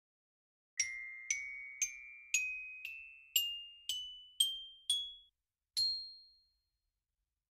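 Logo jingle of bell-like struck notes: nine notes about half a second apart, each a step higher than the last, then a short pause and one higher final note that rings out.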